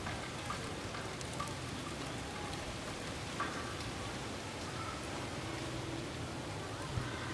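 Steady outdoor wind noise, a rustling hiss of wind through the hanging cloth and palm fronds, with a few faint short chirps here and there.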